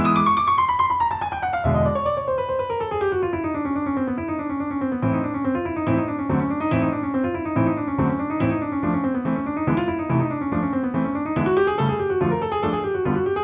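Background piano music: the melody opens with a long falling line over the first few seconds, then turns into a light tune bobbing up and down over regularly repeated low notes.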